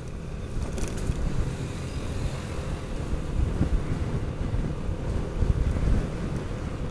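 Yamaha NMAX motor scooter riding along a road, its engine drone mixed with wind buffeting the microphone. The noise is gusty and grows a little louder over the few seconds.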